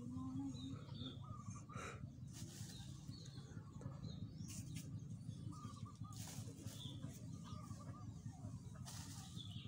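Birds chirping faintly in short scattered calls over a low steady background hum, with a few brief soft brushing noises from hands and a stick working loose growing medium in a seedling tray.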